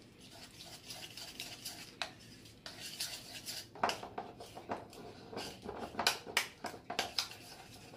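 A spoon scraping and clicking against a mixing bowl in irregular strokes as soft butter is mashed and stirred into a dry spice seasoning to make a rub.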